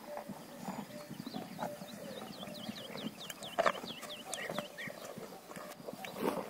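Cows munching bananas fed by hand. Through the middle a bird gives a rapid run of quick falling chirps, and there is one sharp knock about three and a half seconds in.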